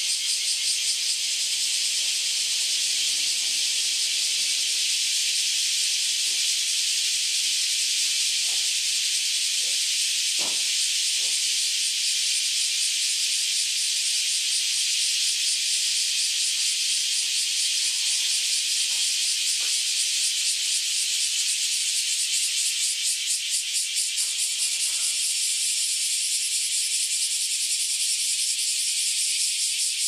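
Cicadas singing in chorus: a loud, continuous, dense high-pitched buzzing with a fine rapid pulsing in it.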